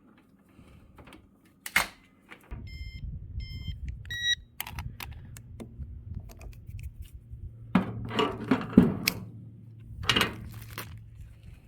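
An electronic unit beeps twice, then once at a higher pitch, over a steady low machine hum that starts a couple of seconds in. There are sharp clicks and bouts of knocking and rattling from handling.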